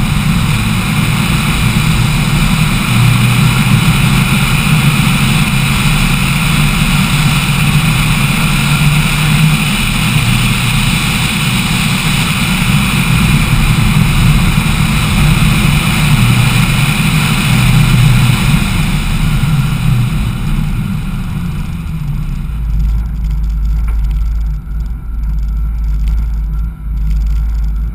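Lancia Delta Integrale Evo's turbocharged four-cylinder engine running at speed, with wind rushing over the bonnet-mounted camera; the engine note shifts in steps a few times. About 22 seconds in the rushing fades as the car slows, and a low rumble takes over.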